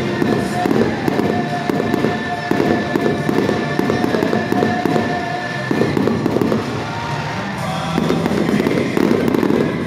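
Aerial fireworks going off in a dense barrage, with nearly continuous bangs and crackling that ease off briefly about seven seconds in, and music playing alongside.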